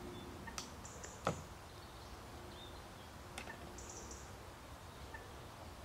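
A few faint clicks and knocks, as of survey electronics and gear being handled in a small boat, over a steady low outdoor hiss, with a couple of faint high chirps.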